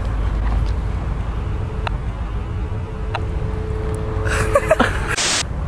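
Steady low outdoor background rumble, with a couple of faint clicks and a short hiss about five seconds in.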